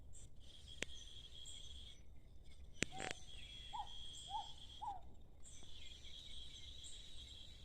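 Insects trilling at a high, even pitch in long stretches that start and stop, with a bird giving three short chirps about four seconds in. Two sharp clicks stand out, one near the start and one about three seconds in.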